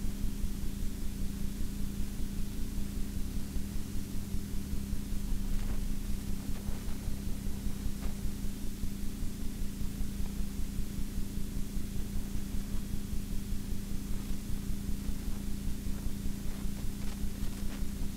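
Vehicle engine idling: a steady low hum with a fast, even pulse, under a steady hiss.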